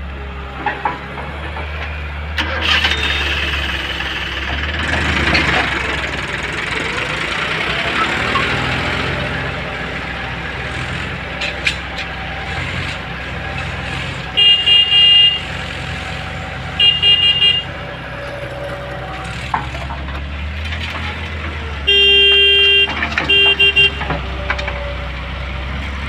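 Heavy diesel engine running steadily, with a vehicle horn honking four times: two short blasts about two and a half seconds apart around the middle, then a longer blast followed by a short one near the end.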